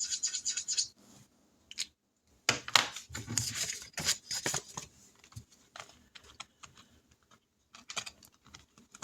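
Felt-tip marker scratching back and forth on paper as a square on a savings tracker sheet is coloured in, in irregular bursts of short strokes, with light paper rustling.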